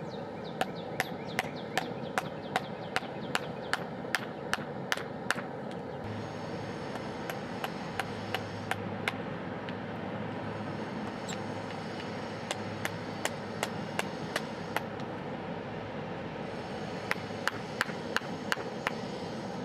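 Hammer blows on hot steel at an anvil, about two or three strikes a second, in four runs separated by short pauses, over a steady background rush.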